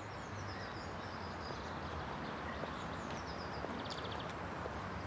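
Outdoor park ambience: small birds chirping, with a quick high trill near the end, over a steady low hum.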